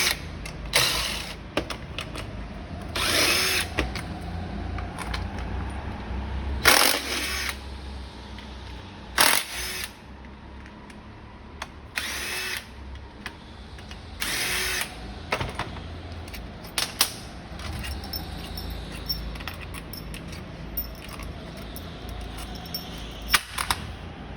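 Power drill run in short bursts, each about half a second, roughly eight times with gaps of a few seconds, with small clicks and handling noises between them.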